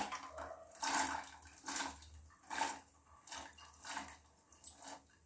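Corn kernels dropped from a bowl into a steel saucepan of water, splashing and pattering in a string of short pours, about one and a half a second, growing fainter toward the end.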